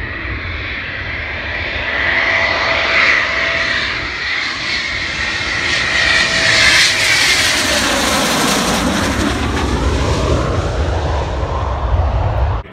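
Eurofighter Typhoon fighter jet with two turbofan engines flying low overhead. The loud jet noise builds as it approaches, then sweeps down in pitch as it passes, and cuts off suddenly at the end.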